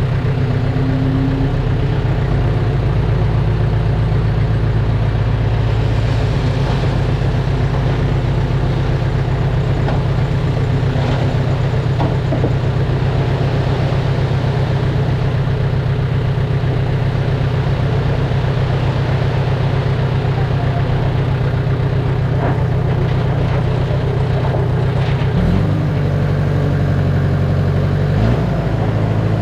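Heavy diesel engine of earthmoving machinery running steadily at a low pitch, with faint scattered knocks, and briefly rising and falling in pitch twice near the end.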